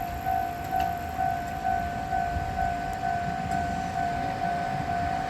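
Japanese level-crossing warning bell ringing steadily, an electronic ding repeating about twice a second, over a low rumble.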